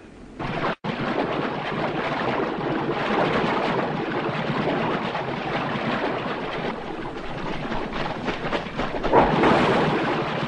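A herd of animals running through shallow water: a steady rush of splashing that grows louder near the end.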